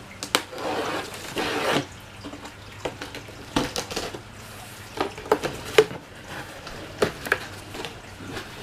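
A cardboard shipping box being opened: packing tape cut and torn along the top, then the cardboard flaps scraped and knocked as they are pulled open. Rasping tears in the first couple of seconds, then a string of short knocks and scrapes.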